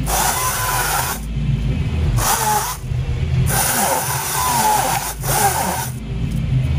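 Battery-powered chainsaw run in three bursts, cutting weeds and brush at ground level. The motor's whine wavers as it cuts: one burst of about a second, a short one, then a longer one of a few seconds.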